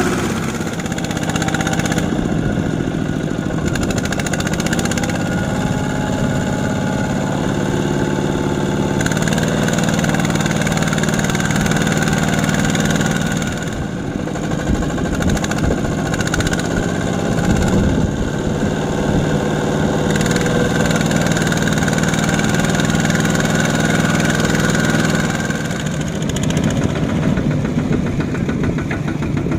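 Single-cylinder diesel engines of two-wheel walking tractors running steadily under load, hauling trailers through deep mud. The engine note shifts about a third of the way through and again near the end.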